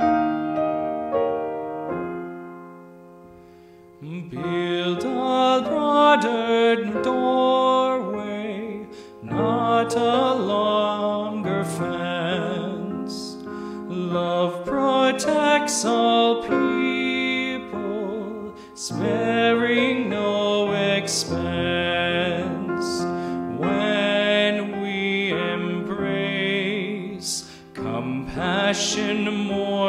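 A man singing a hymn to his own grand piano accompaniment. The piano sounds alone for the first few seconds, fading away, and the voice comes in about four seconds in.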